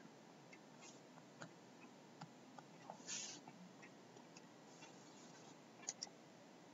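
Near silence: room tone with faint, irregular small clicks and one brief soft hiss about three seconds in.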